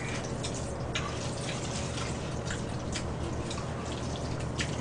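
Eating sounds from people eating jjajangmyeon black-bean noodles: scattered short wet clicks and smacks of chewing, over a steady low hum.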